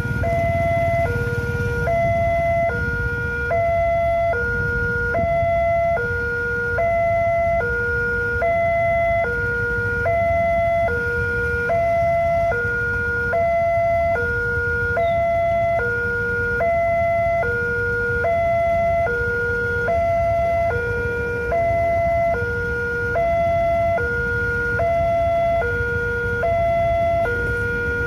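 Indonesian railway level-crossing alarm sounding: an electronic two-tone siren that switches steadily between a high and a low note about once a second, warning road traffic that a train is coming and the barriers are closed.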